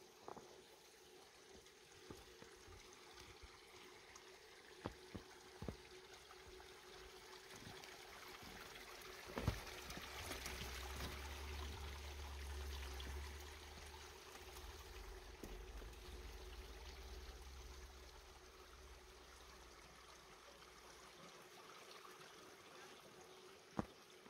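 Faint trickle of running water, with scattered soft knocks and a louder knock about nine and a half seconds in, and a low rumble for a few seconds after it.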